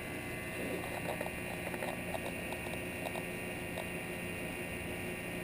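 VacMaster VP215c chamber vacuum sealer's pump running steadily while it holds vacuum, with scattered small pops and crackles of water boiling in a bag at low pressure rather than from heat.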